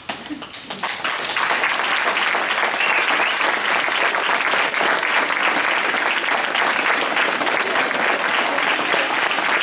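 Audience applauding, building up in about the first second, then steady clapping.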